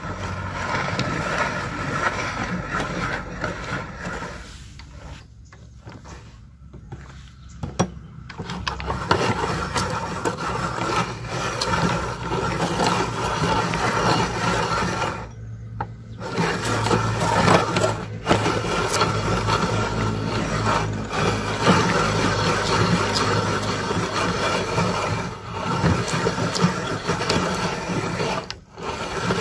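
Hand-cranked metal meat grinder being turned, its auger crushing persimmon pieces with a continual rattling and scraping, quieter for a few seconds and pausing briefly now and then.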